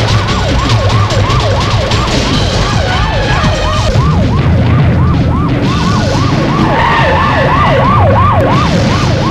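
Police siren in a fast yelp, its pitch sweeping up and down about four times a second over a low steady rumble.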